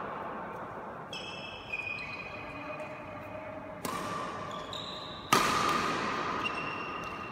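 Badminton rackets striking a shuttlecock: two sharp hits about a second and a half apart, the second the louder, each ringing on in a large echoing hall. Short high squeaks of court shoes on the floor come between the shots.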